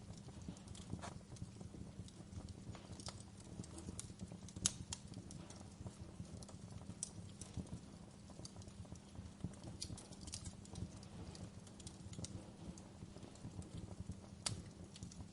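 Wood fire crackling: irregular sharp pops and snaps over a steady low rumble, with two louder pops, one about a third of the way in and one near the end.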